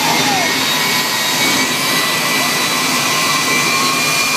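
Jet car's turbine engine running steadily at the start line: a loud, even rushing sound with steady high whining tones.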